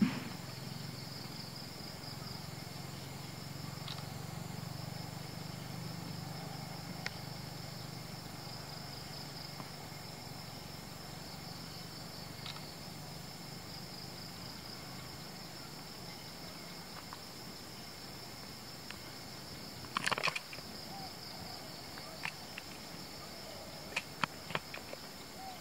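Insects chirring steadily in a high, even drone, with a low hum under it through the first half. About twenty seconds in there is one short crackle, then a few sharp clicks near the end.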